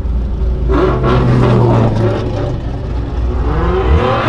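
Drift car's engine revving: it climbs in pitch about a second in, holds steady, then climbs again near the end.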